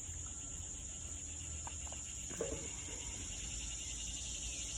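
Steady trilling of crickets in a continuous insect chorus, with a brief faint vocal sound about two and a half seconds in.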